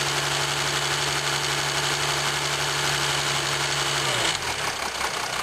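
Jeep Grand Cherokee 3.0 CRD V6 diesel idling, heard close up in the engine bay, with a rattle the owner takes for the timing chain on the drive side. About four seconds in, the steady hum changes and wavers.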